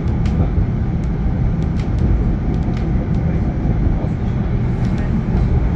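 Steady low rumble of a GT6NU low-floor tram running, heard from inside the car, with scattered light clicks and rattles.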